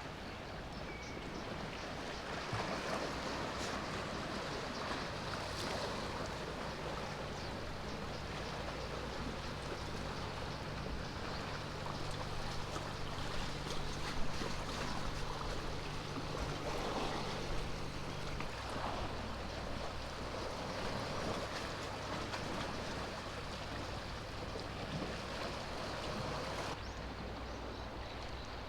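Water lapping and washing at the bay's edge as a steady hiss, over a low steady hum like a distant engine running; one tone of the hum drops out about two-thirds of the way through.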